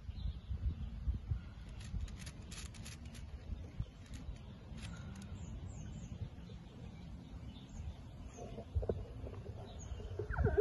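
Wind buffeting the microphone as a steady, gusty low rumble, with a few faint bird chirps and some light clicks.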